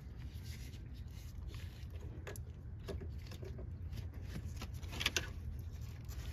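Gloved hands handling hoses and an electrical connector in a car's engine bay: faint rustling with a few short clicks, the sharpest about five seconds in, over a steady low rumble.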